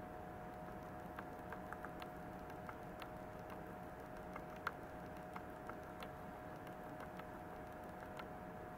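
Quiet room tone: a faint steady hum with scattered light clicks and ticks, one a little louder about halfway through.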